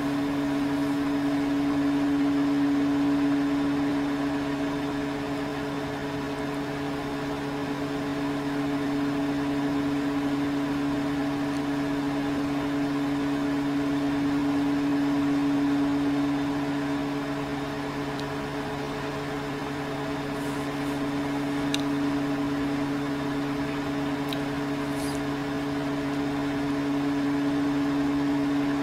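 Over-the-range microwave oven running a heating cycle: a steady hum with a slow, gentle rise and fall in level.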